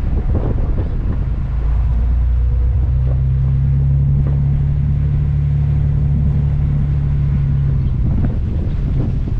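Pickup truck engine running under a plow, with a low steady drone that strengthens from about a second and a half in and eases off near the end, over a rumbling noise.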